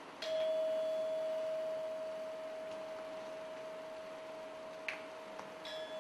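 A struck metal percussion instrument rings out at one steady, bell-like pitch, slowly fading. A second strike near the end sets the ringing tone pulsing.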